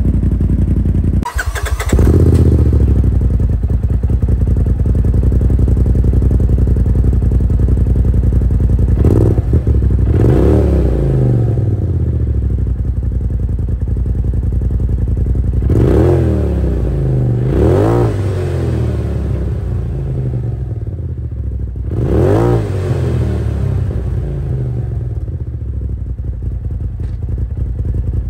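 Polaris RZR Pro XP's turbocharged twin-cylinder engine running through a newly installed RJWC aluminium dual exhaust on its first run, idling steadily and blipped up in about four quick revs that each rise and fall back to idle. A sudden short break comes about a second in.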